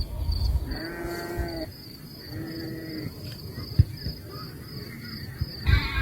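Cattle mooing twice, two drawn-out calls of about a second each, over insects chirring in a steady high pulse.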